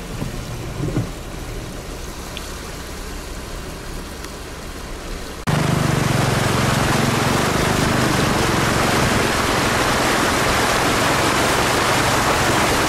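Floodwater rushing and splashing as a vehicle wades through deep water over a road. About five seconds in it jumps suddenly to a loud, steady rush of water with a low hum underneath.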